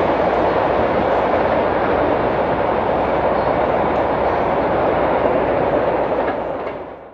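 Steady rolling noise of a freight train on the rails, fading out near the end.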